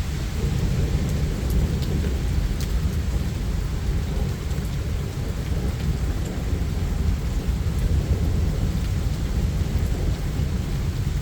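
Thunderstorm: a continuous low rumble of thunder under steady rain, with a few light raindrop ticks.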